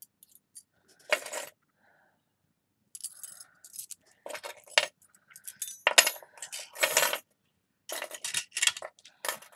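Metal skeleton key charms clinking and jangling against one another as a pile is handled and spread out by hand, in irregular clusters of clinks: one short rattle about a second in, a brief pause, then repeated bursts through the rest.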